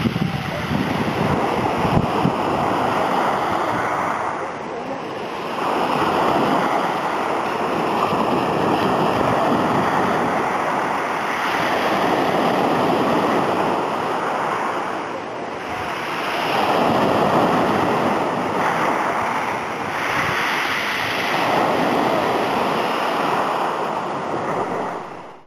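Sea waves breaking and washing onto the shore, the rush swelling and falling back every four to five seconds, with wind buffeting the microphone.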